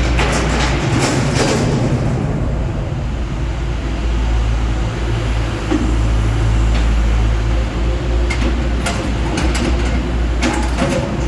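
Cat 420 backhoe loader's diesel engine running steadily, with bursts of clanking and knocking about the start and again near the end.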